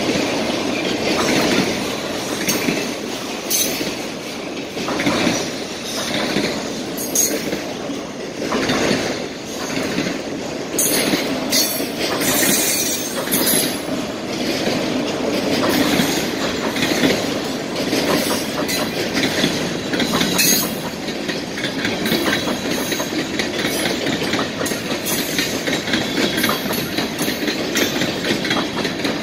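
Freight train cars (autoracks, covered hoppers and boxcars) rolling past at speed: a continuous rumble of steel wheels on rail, broken by a steady run of clacks as the wheels cross the rail joints.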